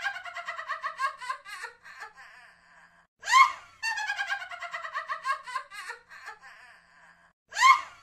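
Witch's cackle: a sharp rising shriek, then a rapid, high-pitched cackling laugh that falls in pitch over about two seconds. The pattern repeats as a loop about every four seconds.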